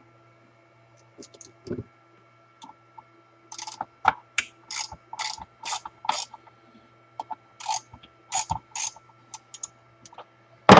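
Hand tools and metal parts clicking and clinking during disassembly of a Milwaukee 6238-20 portable band saw: scattered sharp clicks, a quick run of them in the middle, and one loud knock at the end.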